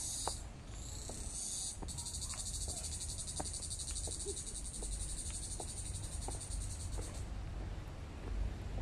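Insects in the trees giving a steady, very fast pulsing high buzz that swells in briefly twice, then holds from about two seconds in and cuts off suddenly about seven seconds in. Under it, faint footsteps on concrete steps.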